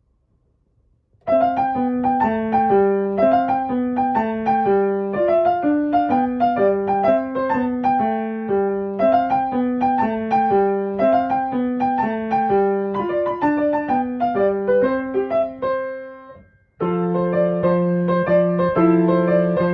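Background piano music: a repeating melody of single notes starts about a second in, fades out near sixteen seconds, then starts again with fuller held chords.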